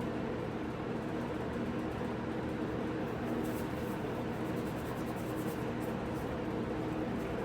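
A machine's steady hum with several low tones, at an even level throughout. Faint light scraping strokes come in the middle.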